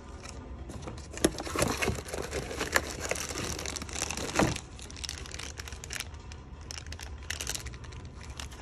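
Clear plastic zip bags holding vinyl decals crinkling and rustling as they are handled, with scattered light clicks and taps.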